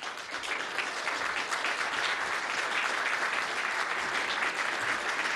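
An audience applauding, many people clapping at once; the applause builds over the first second and then holds steady.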